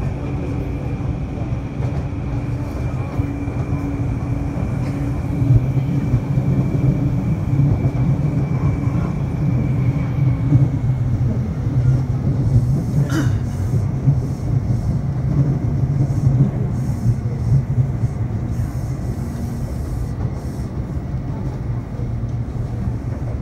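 Taipei Metro C301 electric train running along the line, a steady rumble that grows somewhat louder through the middle. A thin steady high tone fades out about ten seconds in, and there is a single sharp click just past the halfway point.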